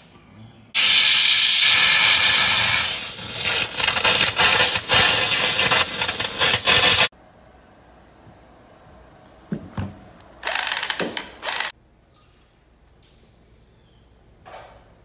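Loud tool work on plumbing: a rasping noise lasting about six seconds, steady at first and then rising and falling, and a second shorter burst about ten seconds in.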